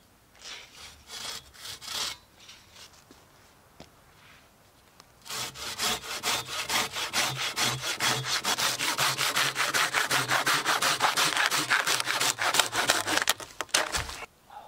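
Large curved hand pruning saw cross-cutting a felled conifer log by hand: a few slow starting strokes, a pause, then a long run of fast, steady rasping push-pull strokes. It ends with a low thud as the log is cut through.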